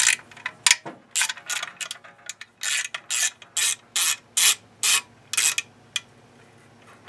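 Hand socket ratchet clicking in a run of quick back-swings, about two a second, as it backs out a bolt on a small engine cover; the clicking stops a little past five seconds in.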